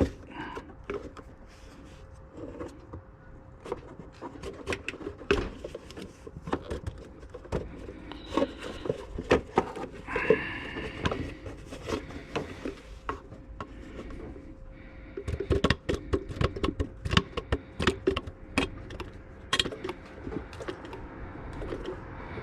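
Irregular clicks, knocks and handling noises of a hand suction pump being worked to empty a power steering fluid reservoir, busier in the last few seconds, with a brief squeak about ten seconds in and a faint steady hum underneath.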